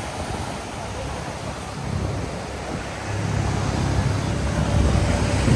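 Seaside outdoor ambience: a steady rush of surf and wind noise on the microphone, with a louder low rumble swelling in about three seconds in.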